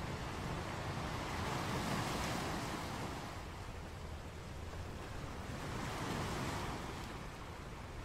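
Ocean surf washing against the shore, a steady rush that swells twice, about two seconds in and again about six seconds in, as waves break.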